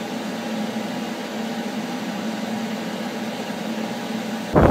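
A steady, even machine-like hum with a hiss over it, unchanging in pitch and level. Near the end it gives way to a sudden loud rushing noise.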